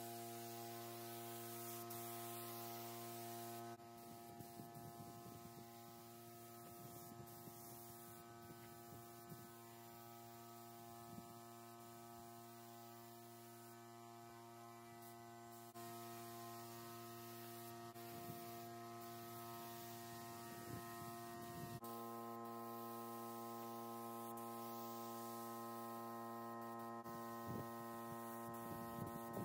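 A faint steady hum of several even tones that shifts slightly a few times, with a few faint ticks.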